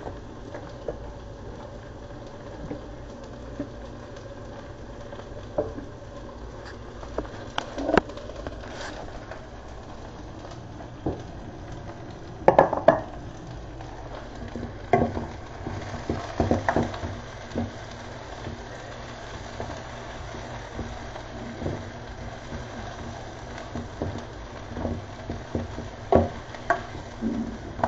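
Chopped onions frying in melted butter in a pan, a steady sizzle, with a spatula stirring and knocking against the pan. A short burst of clattering just before halfway.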